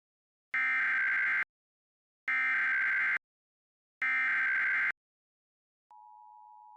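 Emergency Alert System SAME data header: three identical bursts of buzzing digital tones, each just under a second long and about a second apart, encoding a Child Abduction Emergency (Amber Alert). Near the end, the steady EAS attention tone begins, fainter.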